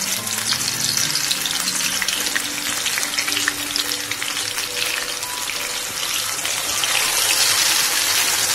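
Gram-flour (besan) battered fish pieces frying in hot oil: a steady sizzle full of fine crackles, getting louder near the end as another piece goes into the oil.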